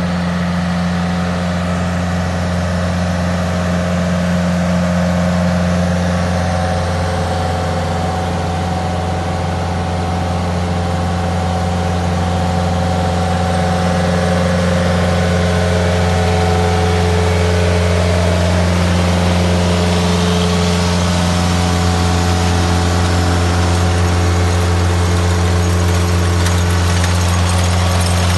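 Tractor engine running steadily, driving the PTO-powered rotating brushes of a Sisis Osca 3 artificial-turf brush. A constant low hum that gets slightly louder about halfway through.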